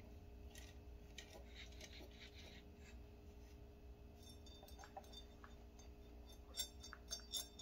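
Faint handling noise from a pellet trap being lifted and tilted: light rubbing and scraping, then a few small sharp clinks near the end as the pellets caught inside shift about.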